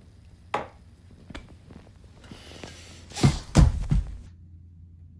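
Handling noise from a phone being picked up and moved. A sharp knock about half a second in, a lighter click, then a cluster of heavy thumps and rubbing about three seconds in.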